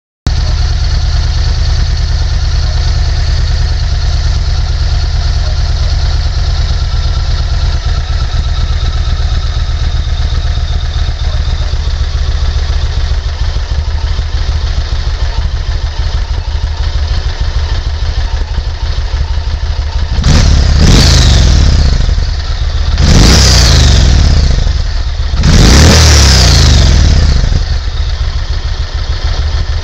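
2004 Yamaha Warrior XV17's 1670 cc V-twin on its stock exhaust, idling with a steady low rumble. Near the end the throttle is blipped three times, each rev rising and falling back to idle, the last held longest.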